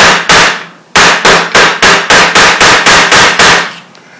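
A ball-peen hammer striking a steel punch against the pin of an AR-15's A2 front sight base: two sharp metal blows, a short pause, then a fast even run of about a dozen blows at roughly four a second. The pin is flared on both sides and will not drive out.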